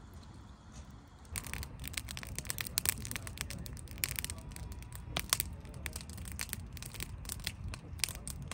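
Wood campfire crackling, with frequent sharp pops that grow louder about a second in, over a low steady rumble.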